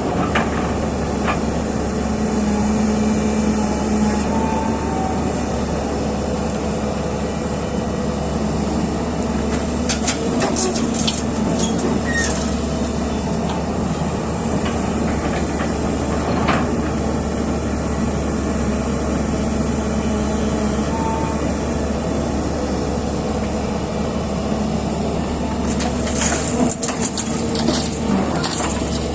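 Heavy diesel excavator engine running steadily under load, with scattered sharp knocks a third of the way in and a cluster of them near the end.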